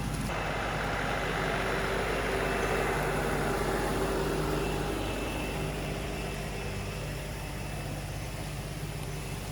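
Tractor engine running steadily, a continuous pitched hum that swells a little in the middle.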